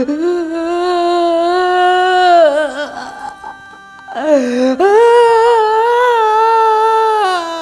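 A man's exaggerated, theatrical wailing cry, drawn out in two long wavering notes with a pause between them, the second pitched higher than the first.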